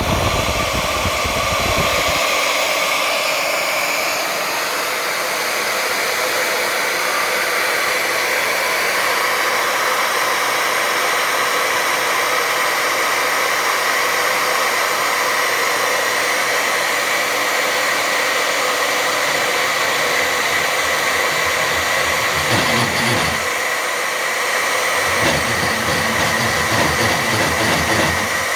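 Champion AC 120 magnetic drill press running steadily with a high motor whine, driving a line boring bar as the cutter is pulled backwards through a bore. A lower, rougher rumble joins briefly near the end, then again for the last few seconds.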